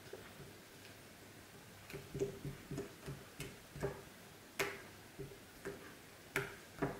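Faint sticky clicks and small pops as fingertips press into and pull off a soft lump of gummy-bear slime on a tabletop. They start about two seconds in and come roughly one or two a second.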